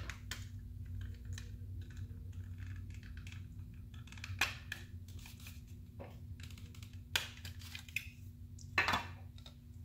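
Hard plastic housing of a car overhead display being pried apart by hand: light handling clicks and rattles, with a few sharp snaps from about four seconds in as the retaining tabs let go. A steady low hum runs underneath.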